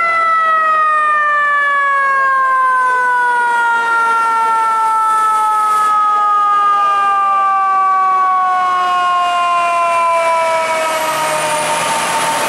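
FDNY ladder truck's mechanical siren winding down, one long tone sliding slowly lower in pitch. Near the end the truck's engine rumble and road noise rise as it passes close.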